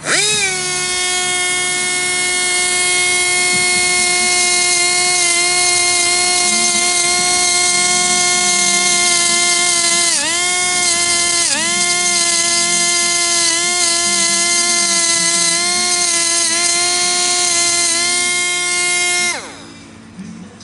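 Daai water-pressure booster pump motor running with a loud, steady high whine. It spins up at the start, dips in pitch briefly twice about halfway through, then winds down in a falling glide near the end.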